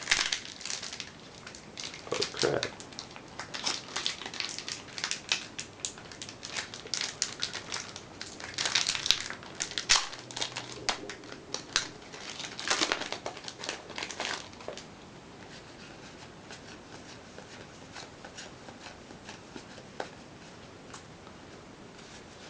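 Foil booster pack wrapper crinkling and trading cards being handled, a rapid run of crackles and clicks that stops about two-thirds of the way through, leaving faint room hiss.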